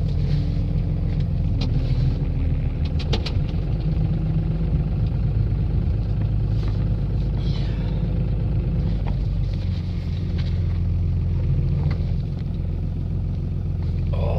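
Old Dodge truck's engine idling steadily after a reluctant cold start.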